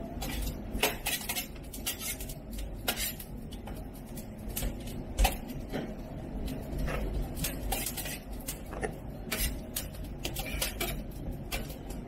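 Hands folding and turning a large, wet mass of pizza dough on a marble counter: irregular light clicks and soft knocks, one louder knock about five seconds in, over a low steady hum.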